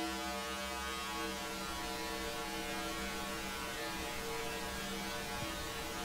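White noise run through Ableton Live's Resonators effect, tuned to the note C2: a steady hiss with a drone of evenly spaced, held resonant tones over it, the resonances mixed partly wet with the dry noise.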